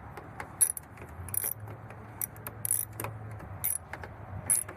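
Scattered small metallic clicks and rattles of a Hyundai Sonata's door handle parts and retaining bolt being worked inside the door as the bolt is turned in to secure the new handle.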